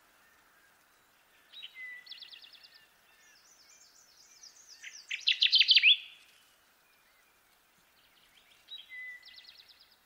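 Kirtland's warbler singing: a loud, quick run of notes ending in an upswept phrase about halfway through, with softer chirping phrases before and near the end, over a faint steady hiss.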